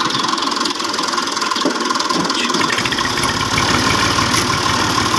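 Tractor diesel engine idling steadily, with its low rumble growing stronger about halfway through.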